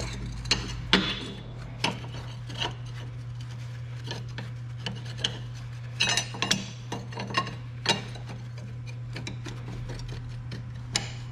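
Irregular metal clinks, knocks and scraping of steel parts as a truck torque rod end and its bolts are worked into the axle bracket, loudest about a second in, over a steady low hum.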